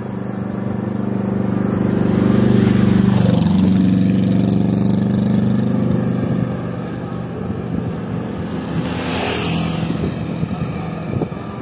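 Motor vehicles passing a bicycle on a narrow country lane: a small pickup truck coming the other way and a motorcycle overtaking. A steady engine hum is loudest in the first half, and a brief rush of noise comes about nine seconds in as a vehicle goes by close.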